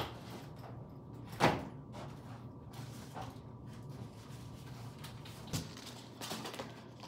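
A few sharp knocks and clacks of things being handled in a room, the loudest about a second and a half in, like a door or drawer shutting, over a low steady hum.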